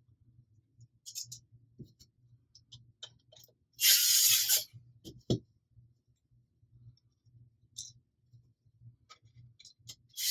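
Small clicks and taps of plastic blaster parts and screws being handled, with a brief rustling hiss about four seconds in and a sharp knock just after it.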